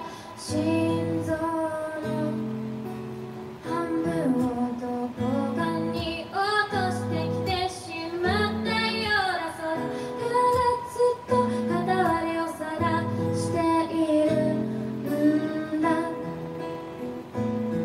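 A woman singing live, accompanying herself on an acoustic guitar playing chords.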